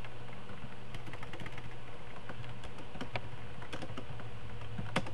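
Typing on a computer keyboard: irregular key clicks, with a couple of louder keystrokes near the end, over a steady low hum.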